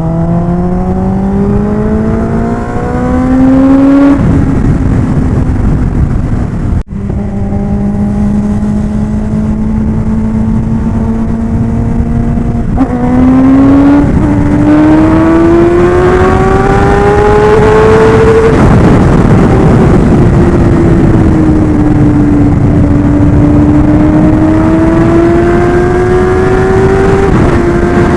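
Kawasaki Ninja ZX-10R's inline-four engine under hard acceleration, its pitch climbing through each gear and dropping at quick upshifts: one about four seconds in, two close together near the middle, and one near the end. The pitch sags once in the second half as the throttle eases, then climbs again. Heavy wind rush runs underneath.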